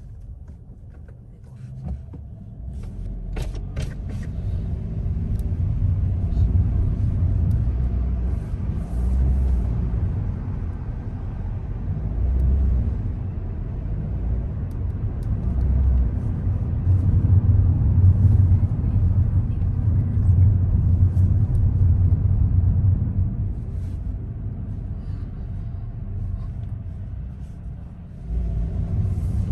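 Car driving on city streets: a steady low rumble of engine and tyre noise, quieter for the first couple of seconds, then growing louder and easing off again. A few faint clicks come about three to four seconds in.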